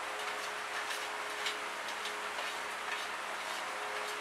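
Yogurt gravy simmering in a wok: a steady hiss with many small, irregular pops and ticks from the bubbling sauce.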